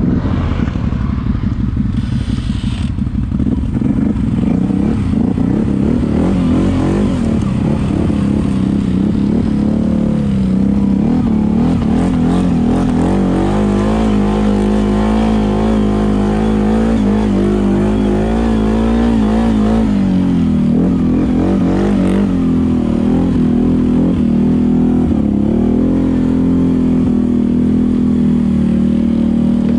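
ATV engine running under load off-road, its note rising and falling with the throttle. It is held steady for several seconds in the middle, then drops and picks up again about twenty seconds in.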